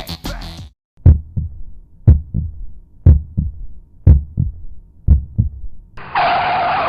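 Heartbeat sound effect: five double thumps (lub-dub), about one a second. Near the end a steady rushing noise sets in.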